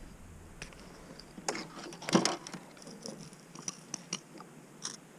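A glass jar's screw lid being twisted open and a plastic spoon scooping coffee granules out of the jar. Faint scrapes and rustles, with a few sharp clicks about a second and a half, two seconds and four seconds in.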